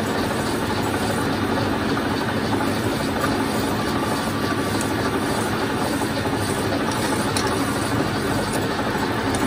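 Metal lathe running steadily, with a hand file stroked over the spinning steel truck balance-rod bush pin to finish it.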